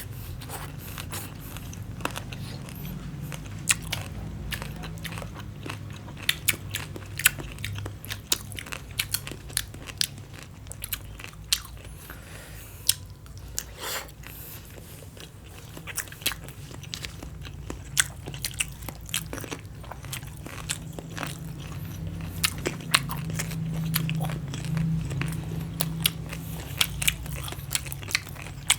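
Close-miked chewing of crunchy green papaya salad and cucumber, with many sharp crunches and mouth clicks throughout.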